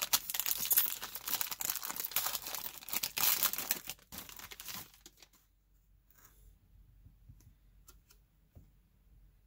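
Foil wrapper of a trading-card pack being torn open and crinkled for about five seconds. After that come a few faint clicks as the cards inside are handled.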